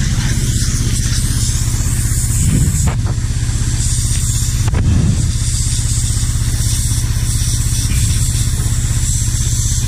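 Pressure washer running steadily, its motor humming under the loud hiss of the high-pressure water jet blasting grease off a pump. The hiss dips briefly twice, about three and five seconds in.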